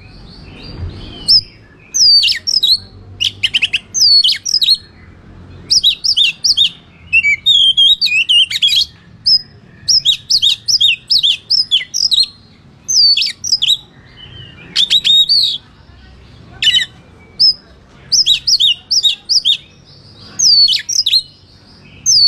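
Oriental magpie-robin (kacer) singing loudly in quick bursts of sharp, varied whistles and chattering chirps, phrase after phrase with short gaps between.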